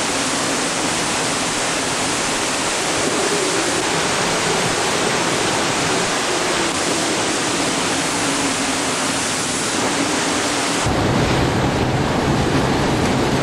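Hurricane-force wind and driving rain, a dense, steady rush of noise. Near the end it switches abruptly to a heavier, lower rush with more rumble.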